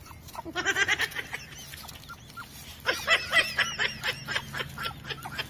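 Short, high-pitched animal calls in two quick spells, about half a second in and again around three seconds in, over light rustling and crackling of dry leaves underfoot.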